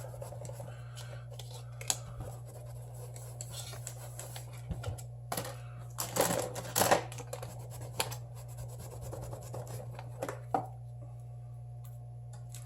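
Small repair tools being handled against a phone on a workbench. There are scattered clicks and taps, and a short run of scraping and scratching about six to seven seconds in, over a steady low hum.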